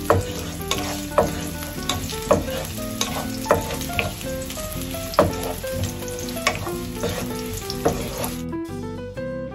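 Sliced garlic sizzling in hot olive oil in a nonstick frying pan, stirred with a wooden spatula. The sizzle cuts off abruptly near the end.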